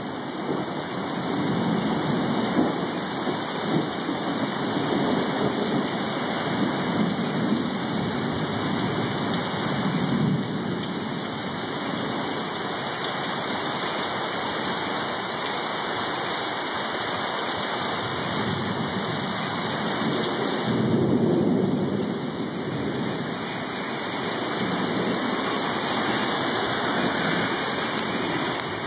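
Heavy rain pouring steadily, with thunder rumbling several times over it; the strongest rumble comes about twenty seconds in.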